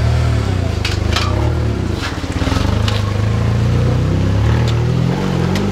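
Ford Ranger pickup's engine running as the truck pulls away slowly, its note dipping briefly about two seconds in. A couple of sharp clicks sound about a second in.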